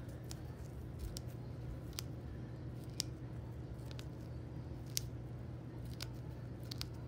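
Gloved fingers pressing epoxy putty into a torn drywall hole: a few faint, sharp clicks and ticks, the clearest about three and five seconds in, over a steady low hum.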